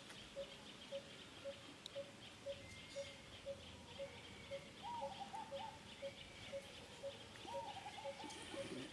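Outdoor wildlife ambience: a bird repeats a single short note about twice a second over a high, steady insect chirring. Two short wavering calls rise above it, about five and seven and a half seconds in.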